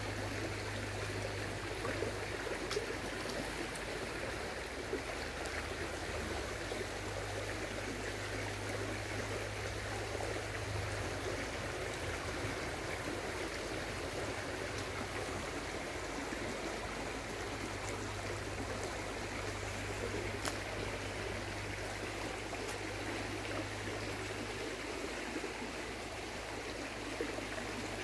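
Shallow river flowing: a steady rushing of water, with a low hum that comes and goes.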